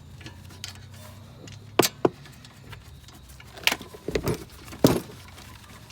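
Sharp metallic clinks and knocks of tools and parts being handled on the brake and hub job: two quick ones about two seconds in, then a group of several near the end.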